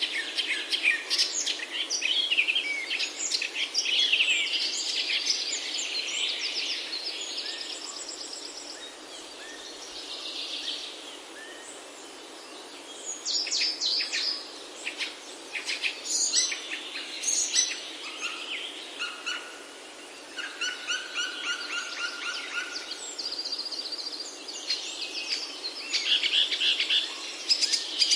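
Several songbirds singing and calling together: overlapping chirps, rapid trills and repeated notes, busiest at the start and again from about thirteen seconds in, with a quieter lull in between, over a faint steady hiss.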